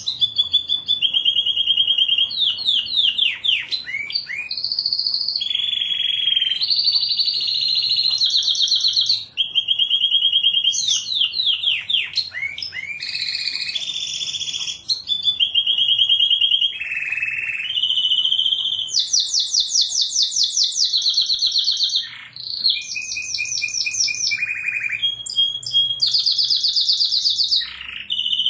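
Domestic canary singing a continuous song: a chain of rapid trills and rolled phrases, each repeated for a second or two before switching to the next, with no pauses.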